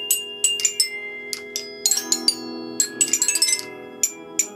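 Self-playing acoustic guitars, their strings struck by actuators: a loose scatter of sharp, ringing notes at many different pitches, with earlier notes sustaining and overlapping underneath.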